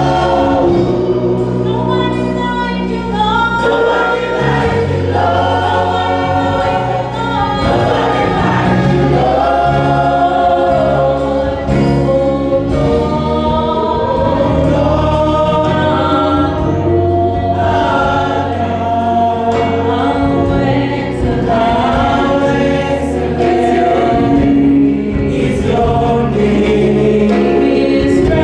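Gospel worship song: a choir singing with instrumental accompaniment and held bass notes underneath.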